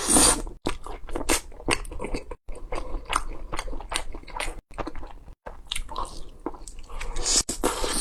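Close-miked eating: crisp crunching bites and chewing in quick succession, cut off by several brief dead gaps of total silence.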